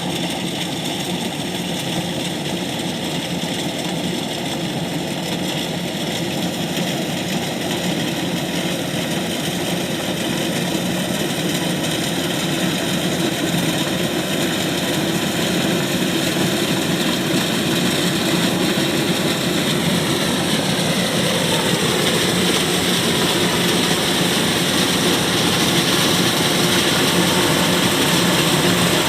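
Kubota DC-105X combine harvester's diesel engine and machinery running steadily, growing slightly louder, with a whine that drops in pitch about two-thirds of the way through.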